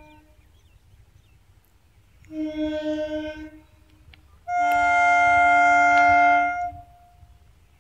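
Electric local train's horn sounding two blasts: a shorter, wavering one about two seconds in, then a longer, louder, steady one lasting about two seconds.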